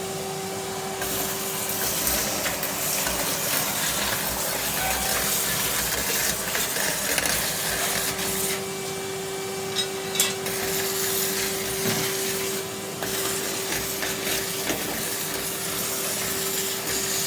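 Henry canister vacuum cleaner running with a steady motor hum, as debris rattles and clicks up the hose in crackly stretches.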